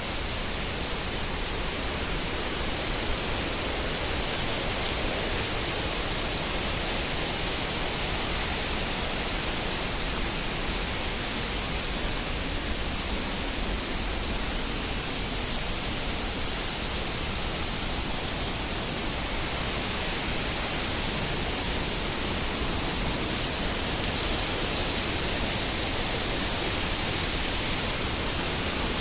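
Fast-flowing water rushing with a steady, unbroken hiss.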